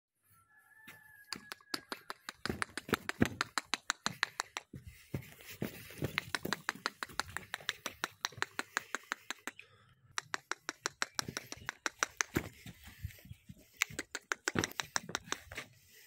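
A rapid series of sharp clicks, about five a second, with a short break about ten seconds in. A brief high chirp sounds near the start.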